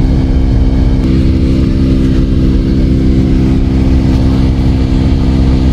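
Car driving, heard from inside the cabin: a steady engine hum over low road rumble.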